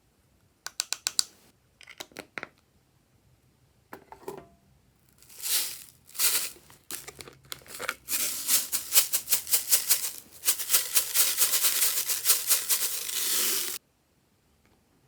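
Glossy slime squished and kneaded by hand, giving short runs of sharp clicking pops. These build into a dense, rapid crackle in the second half, then stop abruptly near the end.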